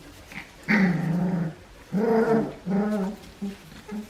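Four-week-old Australian Shepherd puppies growling in play: a run of about five short, pitched puppy growls.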